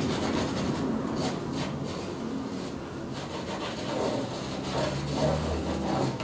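A paintbrush rubbing and scrubbing across a canvas in a series of short strokes.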